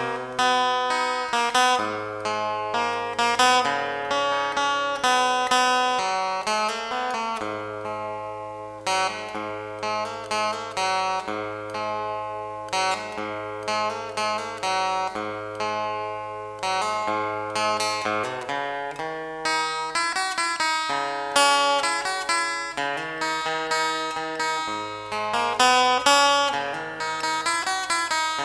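Background music: plucked acoustic guitar melody over a steady bass line.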